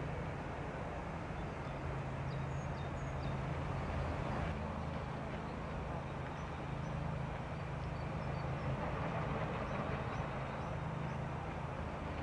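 Outdoor city ambience: a steady low hum of distant traffic, with faint scattered bird chirps over it.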